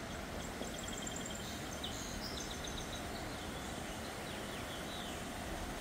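Steady rushing of the flooded river's fast water, with small birds chirping in quick runs of high notes over it during the first few seconds.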